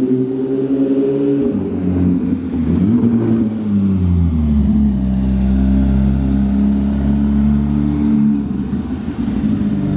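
Porsche 911 GT3 flat-six engine revving up briefly, then falling in pitch as it eases off. It then runs steadily at lower revs for a few seconds before changing near the end.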